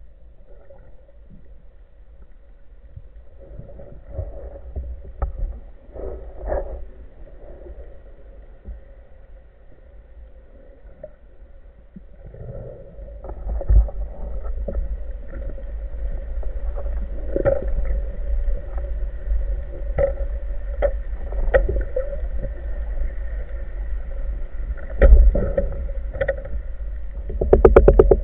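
Underwater sound picked up through a diver's camera housing: a low rumble of water movement with scattered knocks and clicks, growing louder about halfway through, over a faint steady hum. A quick run of ticks comes near the end.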